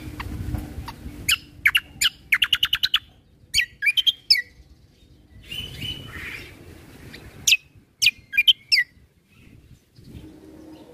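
Kecial kombo (cucak kombo) songbird singing in bursts of sharp, high chirps and quick downslurred whistles, with a rapid run of about eight notes about two seconds in and further bursts around four and eight seconds.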